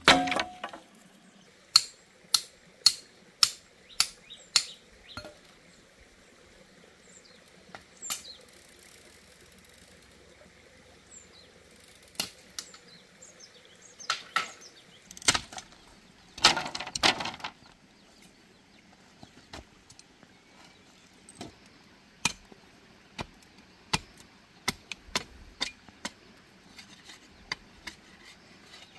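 Bamboo poles and slats being knocked and chopped during coop building: separate sharp knocks, at first about every half second, then a few louder clustered bursts in the middle. Faint bird chirps can be heard between them.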